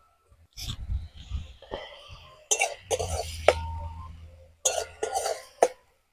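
A person coughing a few times in short bursts, with a single clink and a brief ringing tone about halfway through.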